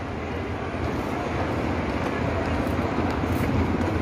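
Steady low rumble with a hiss, a mall's indoor background noise with no clear single event.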